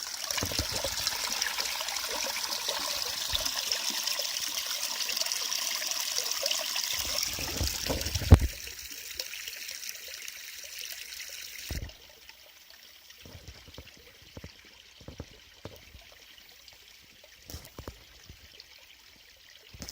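Water from a small forest spring trickling and pouring, being collected into a bottle, steady for about eight seconds. A sharp knock comes about eight seconds in, then a fainter trickle stops about twelve seconds in, leaving only small scattered knocks.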